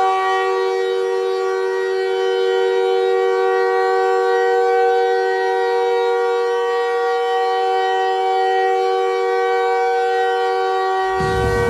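A loud, steady horn-like chord of several tones held unbroken, joined near the end by a low rushing noise.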